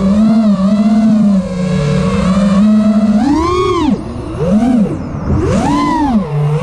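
Brushless motors of a 5-inch freestyle FPV quadcopter (PyroDrone Hyperlite 2207 2522 KV, three-blade 5-inch props) whining as they are heard from on board, the pitch swinging up and down with the throttle. A steep rise and sharp drop comes a little after the middle, then a dip and another rise and fall near the end, as the throttle is punched and chopped.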